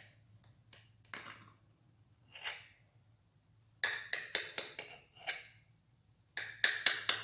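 A knife cuts through a chocolate cake topped with shaved chocolate, its blade clicking and scraping against the plate underneath. The clicks come in quick clusters, one about four seconds in and another near the end.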